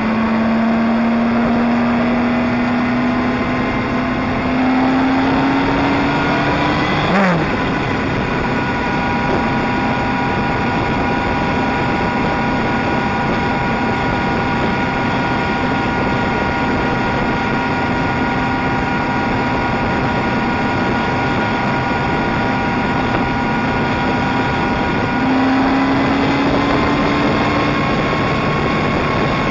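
Motorcycle engine heard from on board while riding, over steady wind and road noise. Its pitch climbs under acceleration, drops sharply about seven seconds in as at a gear change, holds steady while cruising, then climbs again near the end.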